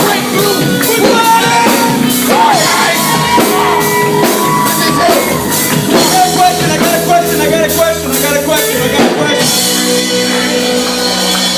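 Loud band music with singing over a steady drum beat; the drums drop out about nine seconds in, leaving held chords.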